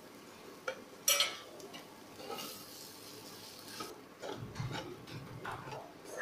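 Spatula stirring and scraping grated boiled potato through a fried onion-and-pea masala in a kadai, with a sharp metal clink about a second in and faint sizzling.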